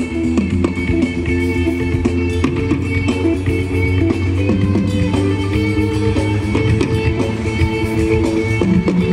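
Music with guitar and a steady bass line, played through a large outdoor PA loudspeaker system that is still being aligned and tested.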